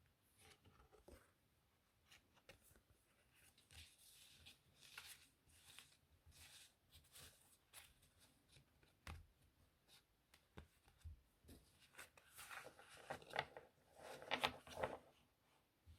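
Playing cards handled close to the microphone: scattered soft taps, slides and rustles, building to a louder, denser flurry of card noise near the end.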